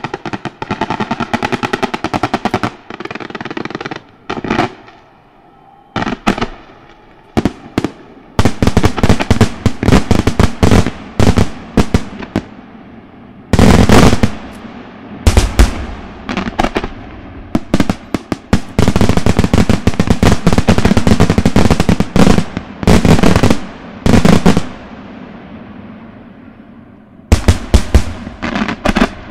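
Fireworks display firing rapid-fire barrages of bangs, flash-powder salutes and shell bursts in machine-gun-like volleys. The volleys come in several waves a few seconds long, the loudest and deepest about halfway through, with short lulls of fading crackle between them.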